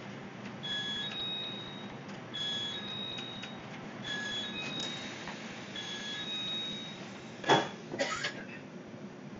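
Short electronic two-tone beeps repeated four times, about every second and a half, over the steady low hum of a train carriage. Near the end come two loud knocks and rustles as the phone is handled.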